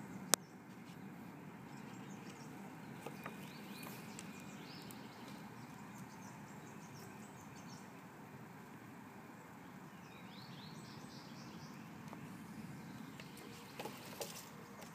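Outdoor ambience: a steady low background hum with faint bird chirps now and then, and one sharp click just after the start.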